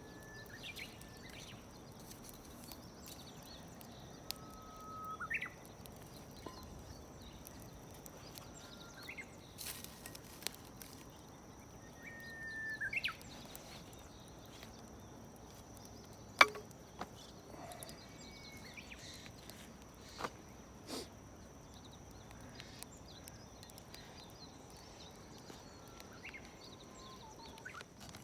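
Bird song: short whistled notes, each held on one pitch and then flicking sharply upward, repeated every few seconds over a faint steady high-pitched tone. A few sharp clicks, the loudest about sixteen seconds in.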